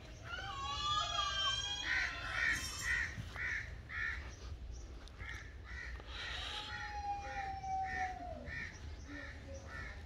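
Crows cawing: a steady run of short, harsh calls at about two a second. A longer wavering call comes near the start, and a long falling tone past the middle.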